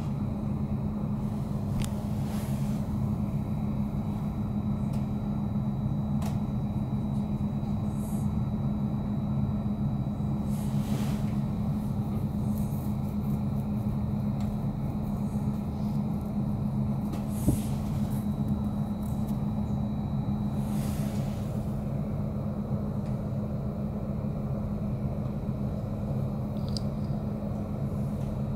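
Steady hum of a Stadler Flirt Sm5 electric commuter train standing still, its auxiliary equipment and ventilation running, heard inside the passenger car. A few short hisses and one sharp click, about halfway through, break the hum.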